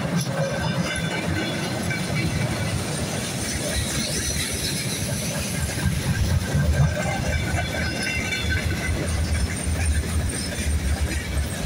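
Freight wagons of a goods train rolling past on the rails: a steady rumble of steel wheels with clatter over the rail joints, and thin high wheel squeal coming and going. It grows a little louder about six seconds in.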